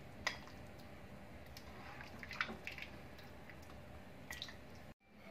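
A ladle scooping thick tomato curry from a pot and pouring it into a ceramic bowl: soft liquid sloshing and dripping, with a few light clicks of the ladle against the bowl and pot. The sound cuts out briefly near the end.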